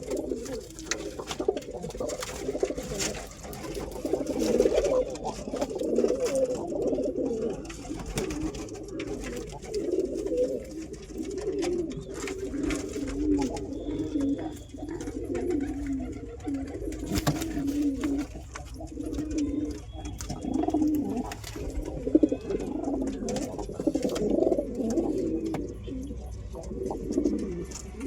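Domestic pigeons cooing, one throaty coo running into the next without a break, with scattered sharp clicks over it.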